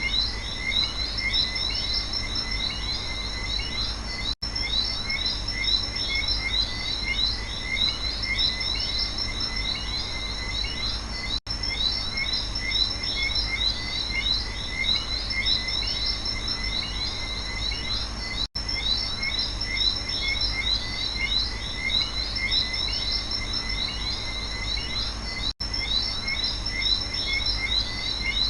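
Night rainforest chorus of frogs and insects: many short chirps repeating densely over a steady high insect drone and a low rumble. The whole sound drops out for a split second four times, about every seven seconds.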